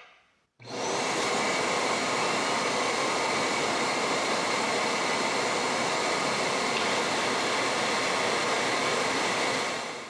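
Tineco Pure One Station's auto-empty dust base running its self-empty cycle, a steady rush of suction air pulling the overfilled dustbin's hair and dust down into the base. It starts abruptly about half a second in and dies away at the very end.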